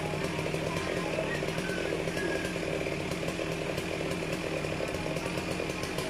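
Backhoe engine running steadily at working revs.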